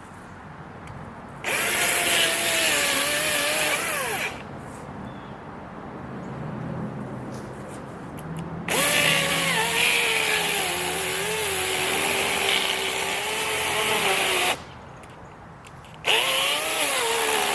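DeWalt cordless electric chainsaw cutting into a tree in three bursts, each starting abruptly. Its motor whine sags and wavers in pitch under load in the cut and falls away as it is released.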